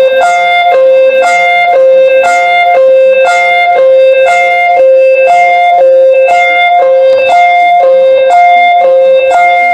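Looping electronic emergency alert tone: a steady held note under a higher note that pulses on and off about twice a second, with a short tick on each pulse, repeating evenly.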